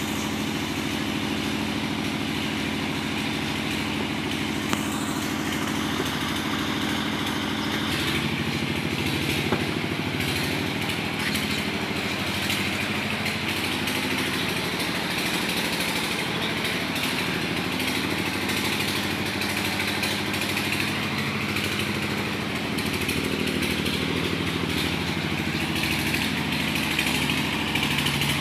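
A small engine idling steadily, with a couple of brief knocks.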